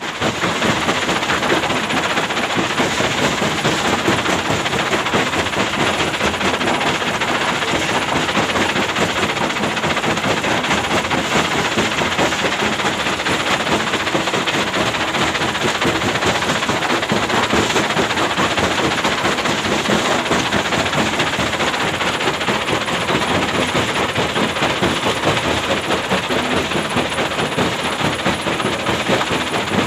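Hyundai excavator running steadily: a loud, dense, even engine and machine noise with no distinct knocks standing out.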